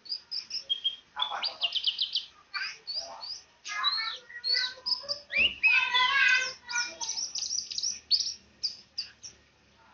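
White-eye (pleci) songbird singing a fast, continuous twittering song of high chirps and quick whistled slurs.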